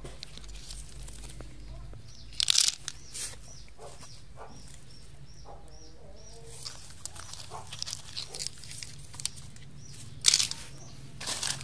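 Dry leaf litter rustling and crunching as hands sift through it to pick out snails, with a few loud crunches: one about two and a half seconds in and two near the end. A short run of faint, quick high chirps sounds midway.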